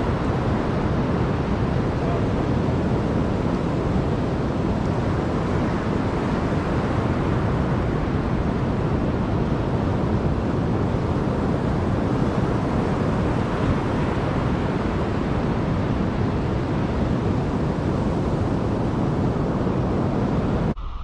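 Wind buffeting the microphone over beach surf: a loud, steady rush heaviest in the low end, which cuts off abruptly just before the end.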